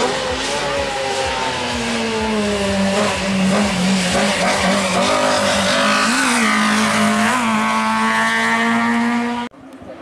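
Hatchback race car's engine running hard at high revs, its pitch falling over the first few seconds, then holding steady with two brief rises. The sound cuts off abruptly near the end.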